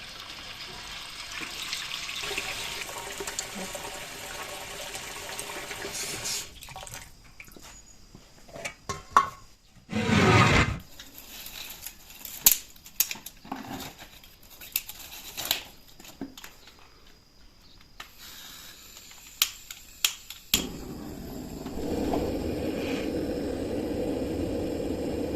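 Water running and splashing, broken by scattered knocks and clatter of handling, with a steady rushing noise again in the last few seconds.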